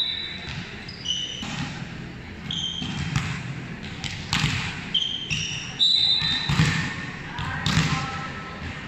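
Indoor volleyball: the ball thudding as it is bounced and struck, short high sneaker squeaks on the court floor, and players' voices, echoing in a large hall.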